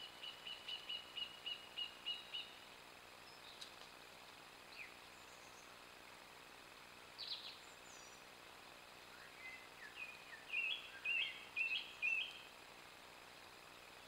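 A woodland songbird singing over a faint steady hiss: a fast run of about a dozen repeated high notes, a few scattered single calls, then short phrases repeated several times in quick succession about ten seconds in.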